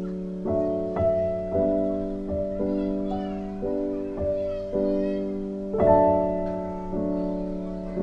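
Background piano music: chords struck about every half second to second, each fading before the next.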